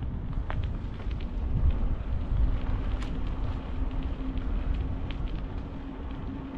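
Wind rumbling and gusting on the microphone of a moving outdoor camera, with a steady low hum coming in about two and a half seconds in.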